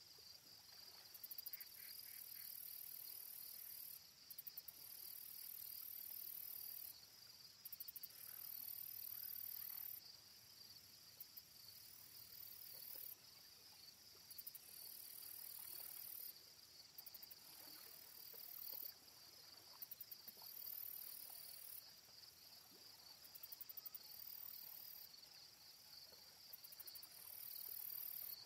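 Faint insects chirping: a steady high trill, with a second, even higher buzzing that comes and goes in spells of a second or three.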